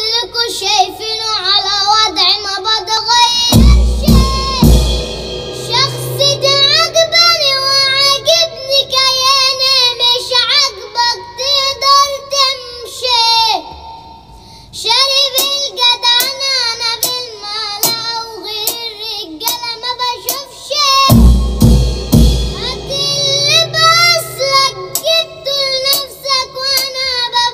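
A child singing an Arabic song solo, the melody wavering and ornamented, with a short break in the middle. A few heavy drum-kit hits come about four seconds in and again about twenty-one seconds in.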